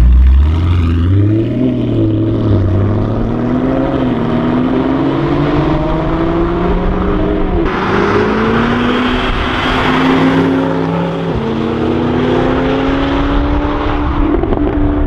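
Brabus SLS AMG Biturbo 700's twin-turbo V8 accelerating under load, its note climbing steadily through the revs. It drops at an upshift about eleven seconds in, then climbs again. A louder rushing noise joins from about eight seconds in.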